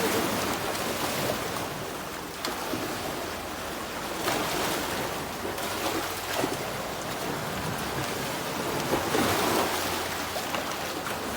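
Sea surf washing onto a beach: a steady rush of waves that swells a little about four seconds in and again near nine seconds.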